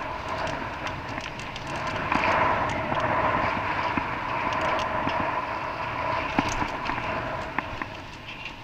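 Vehicle driving along a road, heard from inside: a steady hum of engine and road noise with two steady tones and scattered small clicks and rattles.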